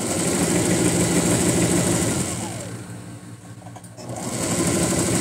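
Electric domestic sewing machine stitching a side seam at a steady speed, slowing down and almost stopping about two and a half seconds in, then speeding back up about a second later and running on.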